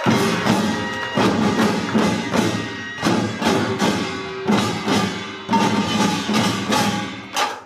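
Korean pungmul percussion ensemble (janggu hourglass drums, buk barrel drums and small gongs) playing the closing strokes of a pangut together, in heavy, unevenly spaced accents with ringing between them. It ends on one last stroke near the end and stops sharply.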